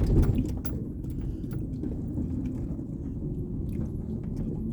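Off-road vehicle creeping down a soft sand hill: a steady low engine and drivetrain rumble, with scattered rattles and knocks from the vehicle jolting over the ground.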